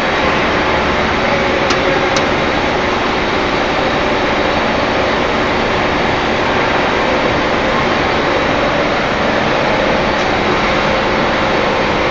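Wire-cut EDM machine running with a loud, steady mechanical hiss and hum, with a faint tone around 500 Hz. Two faint ticks about two seconds in.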